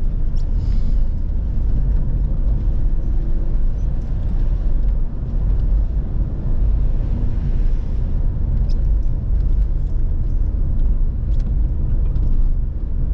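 Inside a Škoda's cabin while driving on a wet road: a steady low rumble of engine and tyre noise, with a few faint ticks.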